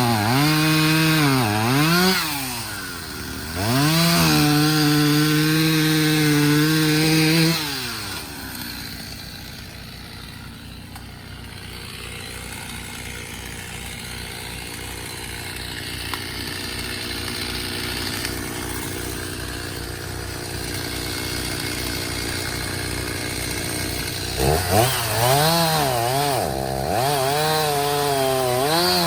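Two-stroke chainsaw revving up and down in pulses, then held at full throttle for about four seconds. It drops to a low, evenly pulsing idle for about fifteen seconds, then revs in pulses again near the end.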